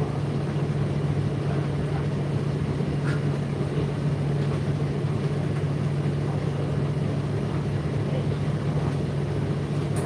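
Indesit IDC8T3 8 kg condenser tumble dryer running mid-cycle: a steady motor and fan hum with a constant low drone, and a few faint ticks.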